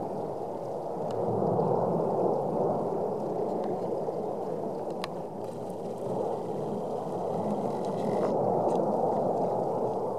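Erupting vent of the La Palma volcano, a lava fountain jetting from the crater: a continuous low rumble that swells and eases, with a single sharp click about five seconds in.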